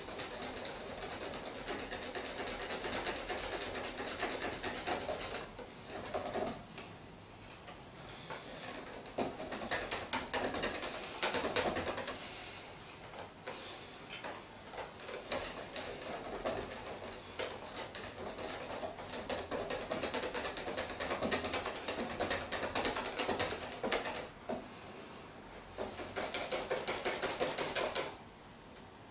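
Wire whisk beating pancake batter in a plastic bowl: a fast, steady clatter of the wires against the bowl and through the batter, with a few short pauses. It stops about a second before the end.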